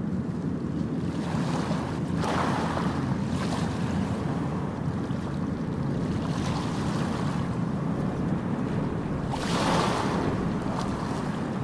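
Steady rushing noise, like surf, that swells about two seconds in and again about nine seconds in.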